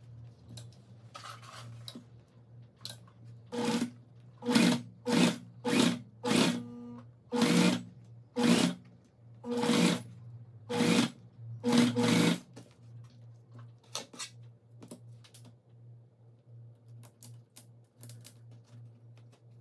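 Singer Facilita Pro domestic sewing machine stitching piping onto fabric in about a dozen short stop-start runs, each under a second, from a few seconds in until about two-thirds through, with a low hum underneath. After that only a few faint clicks are heard.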